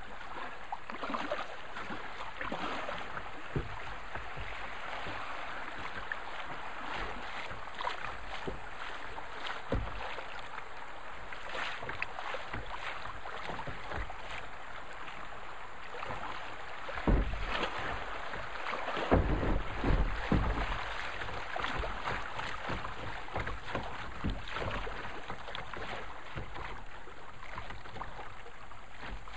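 River water rushing and splashing around a plastic kayak's bow as it drifts through a shallow riffle. There is a scatter of small slaps, and a few heavier low thumps a little past halfway.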